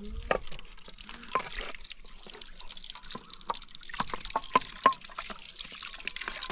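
Liquid dripping and splashing: irregular small plinks and clicks.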